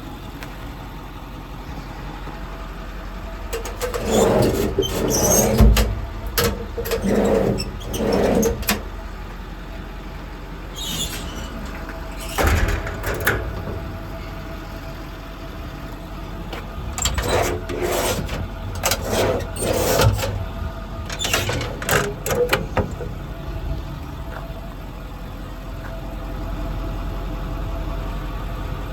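Ford 6.4 Power Stroke V8 diesel idling steadily, with clusters of knocks and clunks over it, the loudest between about four and nine seconds in and again between about seventeen and twenty-three seconds in.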